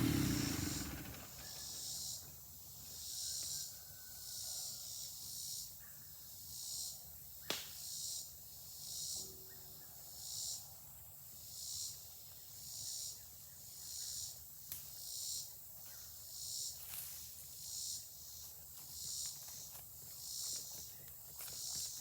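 Insects calling in high, faint pulses that repeat about once a second, with a few sharp crackles now and then. A running engine fades out in the first second.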